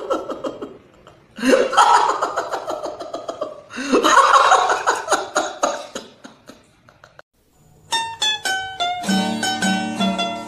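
A man wailing in two long bursts of exaggerated crying, followed about three-quarters of the way through by light plucked-string music with a quick, even rhythm.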